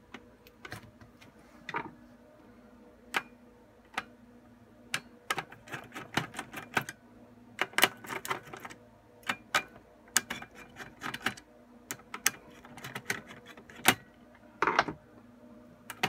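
Scattered sharp clicks and taps in irregular clusters as the CPU heatsink on a Dell PowerEdge M610 blade's system board is worked loose and taken off.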